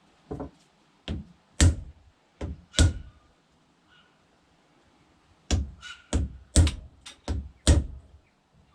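A series of heavy, sharp knocks with a deep thud, struck one at a time: about five, a pause, then six more in quicker succession. These are blows seating a new wooden handle into the head of a block-splitting maul.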